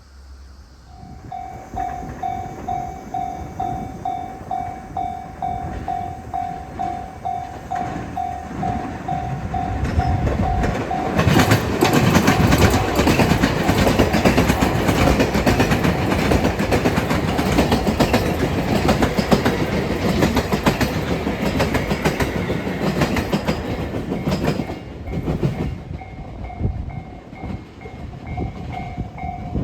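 Japanese level-crossing warning bell starts about a second in, ringing about twice a second. From about 11 s a train passes over the crossing, its loud wheel-and-rail noise drowning out the bell for about fourteen seconds. The bell is heard again near the end.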